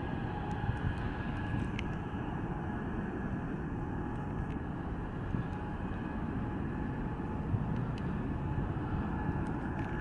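Twin-engine jet airliner's engines at takeoff power as it starts its takeoff roll, heard from a distance: a steady low rumble.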